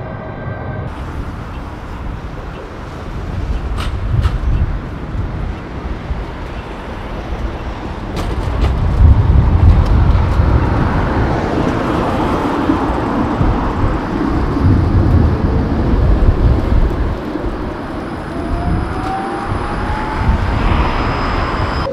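Tatra trams running on street track: a rumble of wheels on rails and running gear that swells as a tram passes close, loudest about halfway through. A whine rises in pitch near the end.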